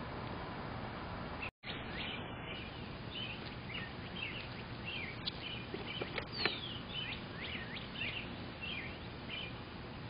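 Birds chirping again and again in short calls over a steady background hiss. The sound cuts out completely for a moment about a second and a half in, and a couple of faint clicks come around six seconds in.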